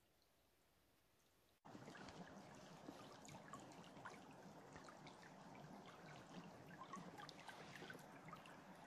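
Near silence, then about one and a half seconds in a shallow stream begins to sound: a steady rush of running water over submerged logs and stones, with many small splashes and trickles.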